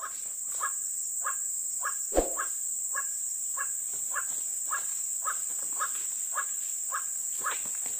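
White-breasted waterhen (ruak-ruak) calls repeated about twice a second, over a steady high insect buzz, with one sharp thump about two seconds in.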